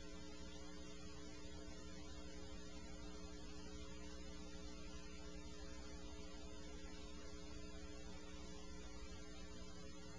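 Faint steady electrical hum with a buzz and hiss, unchanging throughout.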